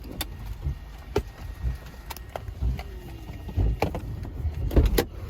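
Cabin noise in a moving vehicle: a low rumble with irregular knocks and sharp rattling clicks, loudest near the end.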